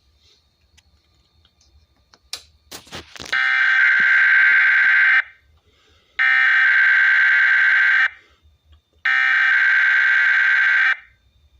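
Emergency Alert System SAME header: three identical buzzy bursts of digital data tones, each about two seconds long with about a second's gap between them, preceded by a few clicks. They are the encoded header of a NOAA Weather Radio Required Weekly Test, sent out again by a TFT EAS 911 encoder.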